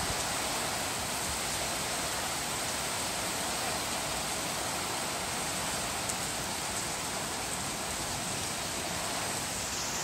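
Heavy typhoon rain falling steadily, a dense even hiss.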